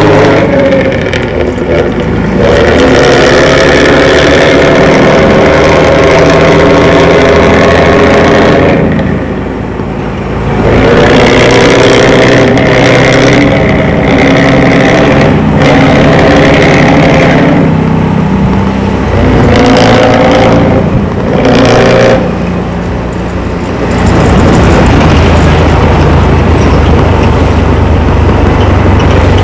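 Intercity bus's diesel engine through a loud modified 'ngorok' (growling) exhaust, revving hard and easing off several times: once about a third of the way in and twice more in the later part.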